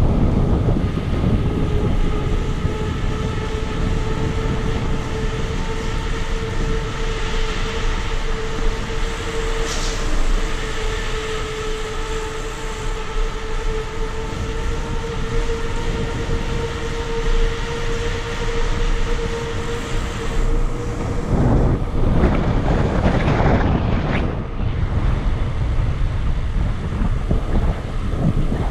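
Wind buffeting a bike-mounted action camera, with tyre rolling noise, while cycling through a stone railway-style tunnel. A steady hum carries on until about twenty seconds in, then stops, and heavier wind noise follows as the bike comes out into the open.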